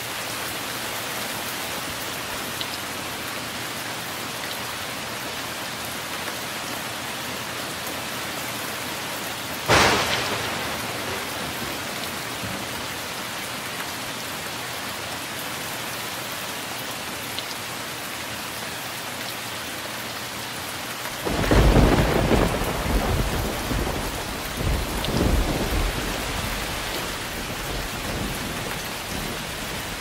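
Thunderstorm: steady heavy rain, with a sharp crack of thunder about ten seconds in that fades quickly, then a louder, deep rolling rumble of thunder starting about two-thirds of the way through and lasting several seconds.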